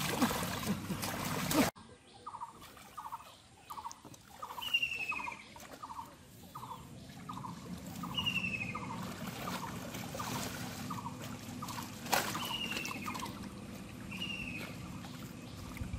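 Water splashing and sloshing, which cuts off abruptly. Then a regular series of short animal calls, about one every 0.7 seconds, with an occasional higher call that falls in pitch.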